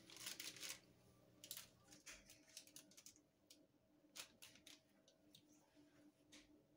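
Near silence with faint paper rustles and light taps as green peppers are laid on a baking-paper-lined tray, busiest in the first second.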